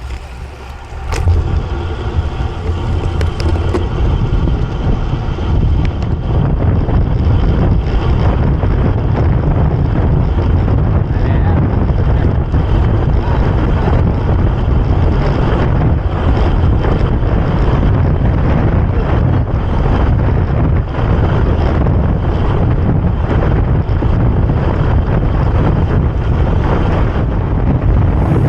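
Strong wind buffeting the microphone during a bicycle ride: a loud, steady rumble that sets in about a second in.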